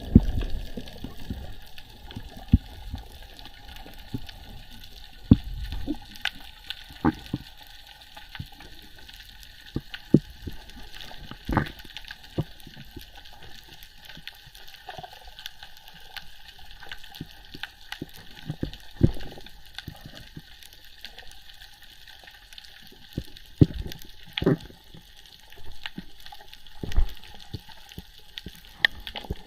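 Underwater ambience: a steady water hiss with scattered sharp clicks and knocks throughout.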